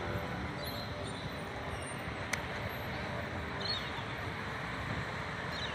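Steady street traffic noise as a B-class articulated tram rolls slowly toward the stop line, with a few short bird chirps and one sharp click a little past two seconds in.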